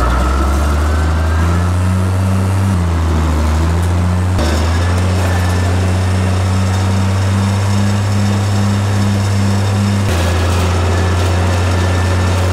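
Old tractor engine running steadily with a low drone while pulling a working manure spreader across a field; the engine note shifts abruptly about three times.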